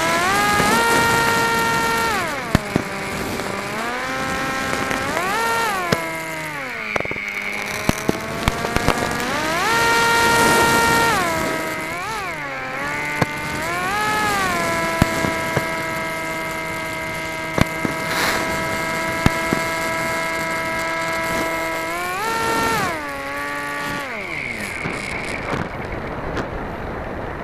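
RC flying wing's motor and propeller heard through its onboard camera: a steady whine whose pitch repeatedly swoops up and down with the throttle and holds level for several seconds in between, over a rush of air. Short sharp pops are scattered through it.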